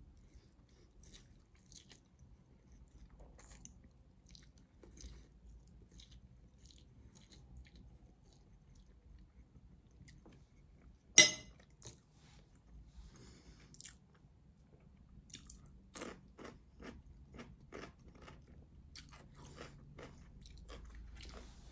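A person chewing a mouthful of spaghetti bolognese, with faint wet mouth clicks that come more often in the last third. About halfway through there is one sharp, loud click.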